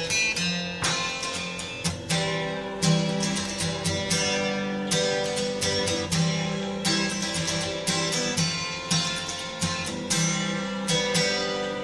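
Background music: acoustic guitar, plucked and strummed notes.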